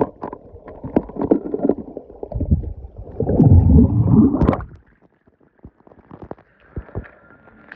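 Water sloshing and gurgling as toy cars are dropped and pushed around in a pool, loudest about three to four and a half seconds in, then a few sharp plastic and metal clicks and taps.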